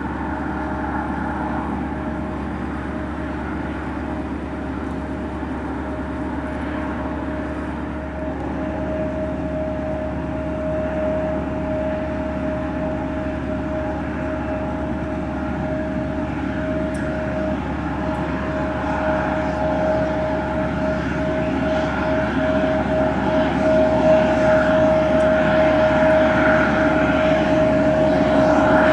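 Jet engine whine and rumble from a regional jet's rear-mounted turbofans at taxi power. One steady high tone grows louder through the second half as the jet comes closer.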